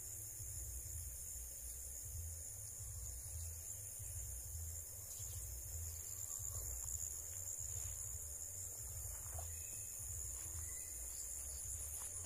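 Steady high-pitched chorus of insects over a low rumble.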